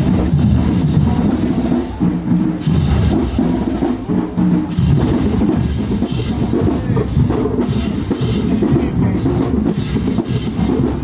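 Marching band drumline playing a marching cadence: snare and bass drums beating steadily, with repeated cymbal crashes. Low held brass notes sound in the first couple of seconds.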